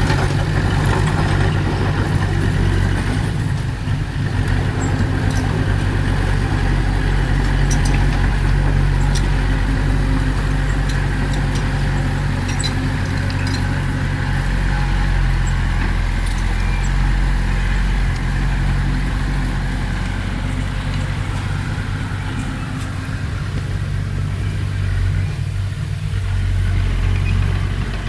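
Heavy diesel engine running steadily with a low, even hum, its loudness dipping and swelling slightly near the end.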